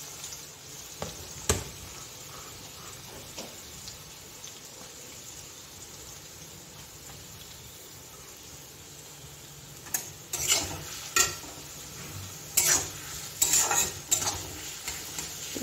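Chopped onions sizzling in hot oil in a kadai, a steady hiss, with one sharp knock near the start. From about ten seconds in, a metal spatula stirs them in quick scraping strokes against the pan.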